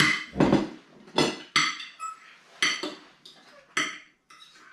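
Knife and fork clinking and scraping on ceramic dinner plates: about seven sharp clinks spread over the few seconds, with a plate set down on the table at the start.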